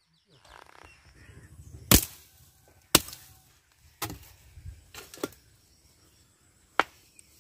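Half a dozen sharp knocks, roughly a second apart, the first two the loudest.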